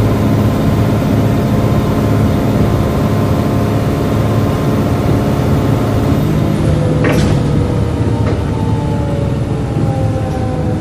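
Volvo B7LA bus's drivetrain and loud cooling fan running steadily. About seven seconds in there is a sharp click, then whining tones that fall slowly in pitch.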